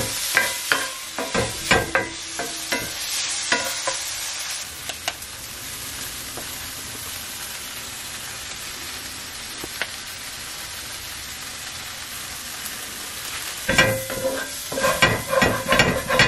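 Chopped onions and tomatoes sizzling in a cast-iron skillet while a wooden spatula scrapes and stirs them. The scraping stops for several seconds in the middle, leaving a steady sizzle, and starts again near the end.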